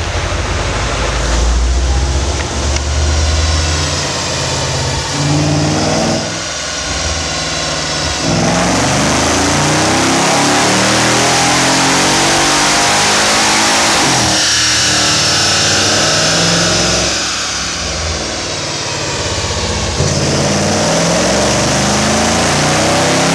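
Mercedes-Benz E55 AMG's supercharged 5.4-litre V8 under full throttle on a chassis dyno, its exhaust note rising in pitch through each gear and dropping back at each upshift, several times over.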